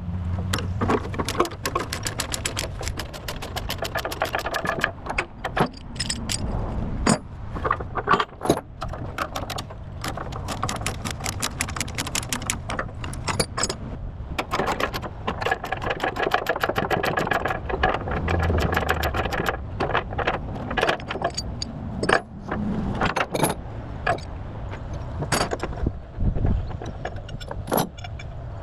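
Steel tie-down chains clinking and rattling in quick, irregular clanks as they are unhooked and handled on a lowboy trailer, with an engine running steadily underneath.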